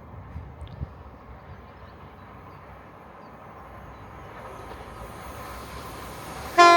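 Class 170 Turbostar diesel multiple unit approaching, its rumble slowly growing louder, then a short loud toot of its horn near the end.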